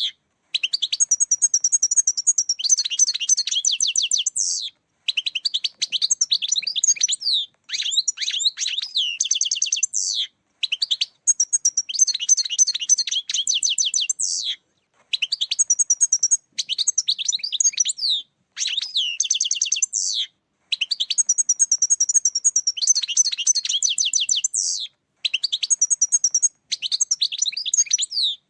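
European goldfinch song: rapid, high, tinkling twitters and trills. It comes in phrases of two to four seconds, about ten of them, each cut off by a short silence.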